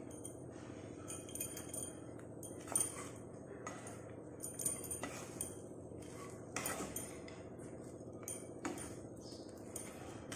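Wooden spatula scraping and knocking against a black kadai while stirring poha, giving irregular short clicks and scrapes over a low steady hum.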